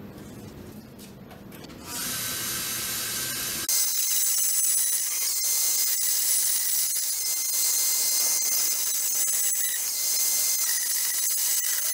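Angle grinder with a cutoff wheel cutting steel bar stock: a steady high whine over a hiss of sparks and grit. It starts about two seconds in and gets louder once the wheel bites, a couple of seconds later.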